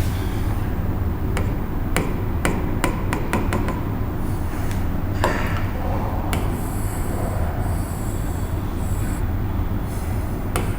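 Steady low electrical hum, with a quick run of light taps and clicks about a second in, and a patch of soft high hiss a little past the middle.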